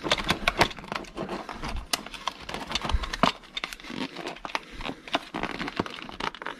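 Clear plastic lure packaging crinkling and crackling as hands pry and flex it open, with many irregular sharp clicks and snaps of the plastic.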